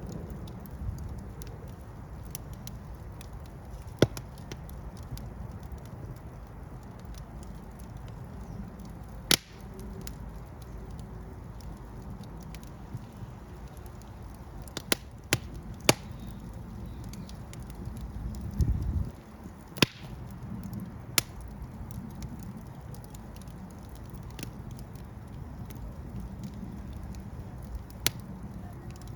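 Fire burning with a steady low rumble of flames and sharp crackles and pops every few seconds, several close together about halfway through. A brief louder rumble comes about two-thirds of the way in.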